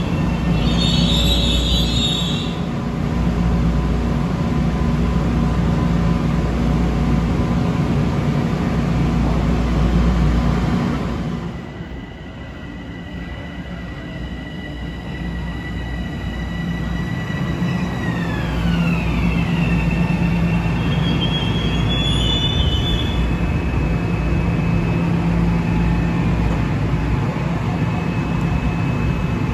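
Metro-North commuter train on the rails: a heavy steady rumble with a brief high wheel squeal at the start. About eleven seconds in it grows quieter and a high whine of several tones comes through; the tones slide down in pitch together a little after halfway. Another short squeal follows a few seconds later.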